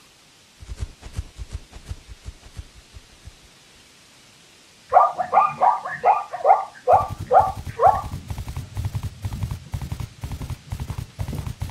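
A zebra's barking call, a quick run of about ten short yelps, followed by the rapid hoofbeats of a zebra galloping. Before the call come softer, slower footfalls.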